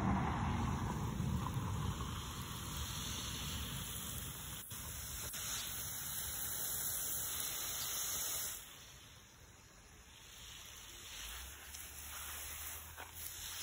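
Garden hose spray hissing steadily onto bare soil and plants. It fades for a couple of seconds about two-thirds through, then comes back.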